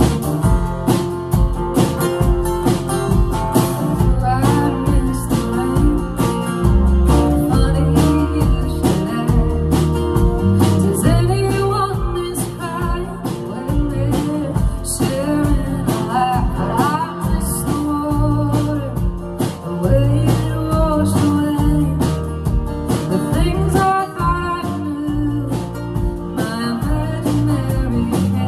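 A live band playing a song: strummed acoustic guitars, electric guitar and drums, with a woman singing lead.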